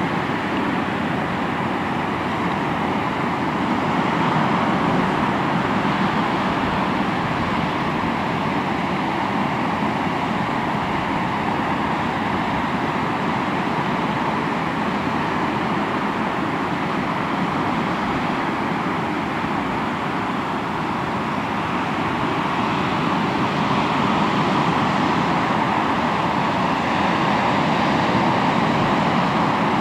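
Sea waves breaking on a shore: a continuous rush of surf that swells a little louder about four seconds in and again from about twenty-two seconds.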